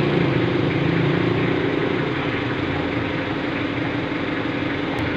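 Workshop machinery running steadily with a low, even hum.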